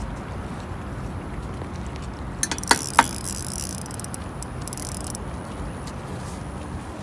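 Spinning rod and reel handled while a hooked batfish is held at the surface: two sharp clacks about three seconds in, then a couple of seconds of rasping hiss, over steady wind and water noise.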